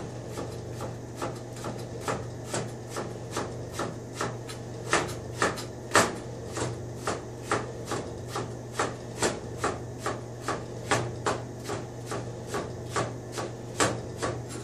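Chef's knife cutting thin slices of vegetable into julienne on a cutting board: an even run of knife knocks against the board, about two to three a second.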